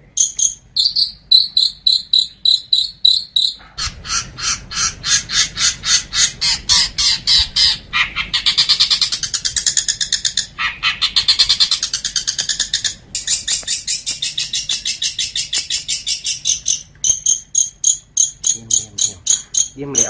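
Long-tailed shrike (cendet) song: a rapid chattering series of sharp high repeated notes, a few a second at first, quickening about four seconds in and running together into dense buzzy trills in the middle, then settling back into an even fast pulse.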